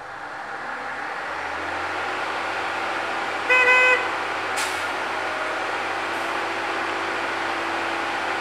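Engine of a railway engineering machine running and growing louder as it approaches along the track, then steady. About three and a half seconds in it gives one short, single-note horn toot, the loudest sound, followed about a second later by a sharp click.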